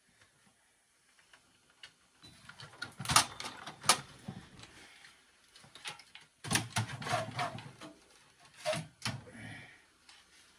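Clicks and clattering from inside a desktop computer case as cable connectors are unplugged and the hard drive is worked loose: two sharp clicks a few seconds in, a burst of rattling and scraping later on, and another click near the end.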